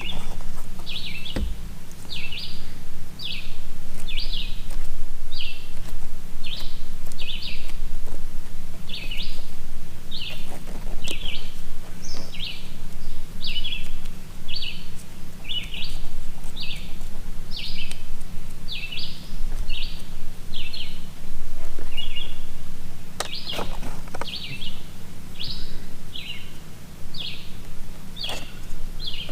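A bird calling the same short chirp over and over, a little more than once a second, over a steady low hum. A few faint knocks are heard, about ten seconds in and again near the end.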